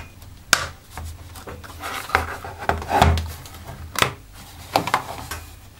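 Plastic retaining tabs of a first-generation Nexus 7's back cover clicking free as a plastic pry tool is worked around the edge. Several sharp clicks come among scraping and rubbing of the plastic cover.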